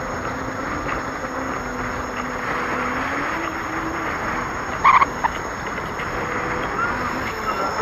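Electric unicycle riding along a paved road: steady wind and tyre noise with a faint motor whine that rises in pitch about three seconds in. A short, sharp high chirp cuts through about five seconds in.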